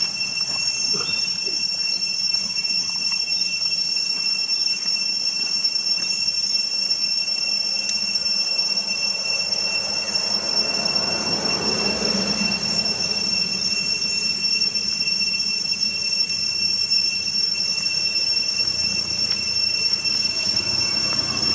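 Steady, high-pitched insect drone made of two even tones.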